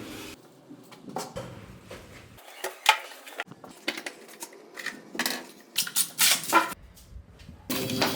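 Tools and metal door hardware clinking and knocking in a series of short, sharp hits, loudest about three seconds in and again around five and six seconds in.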